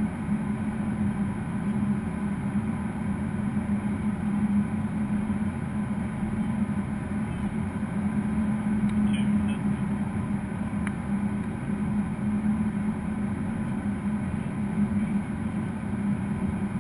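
Steady cockpit noise of a Gulfstream G550 business jet on final approach: rushing airflow and engine hum with a strong low drone, and a faint brief click about nine seconds in.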